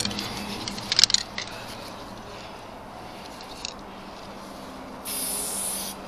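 Aerosol spray-paint can: a few sharp clicks and rattles about a second in as the cans are handled, then a steady hiss of paint spraying for about a second near the end, laying down a black line.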